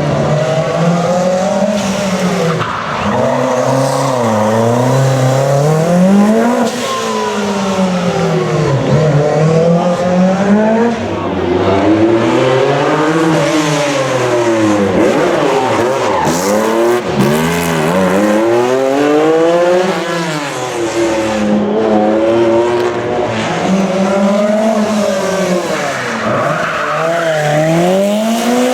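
Rally car engine revved hard and let back, its pitch rising and falling again and again every two to three seconds, with tyres squealing and skidding through drifts and burnouts.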